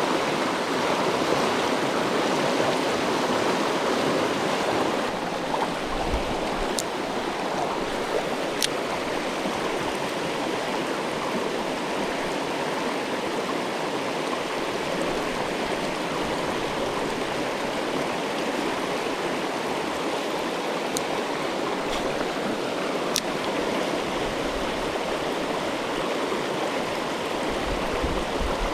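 Mountain creek water rushing steadily over rocks, with a few faint sharp ticks.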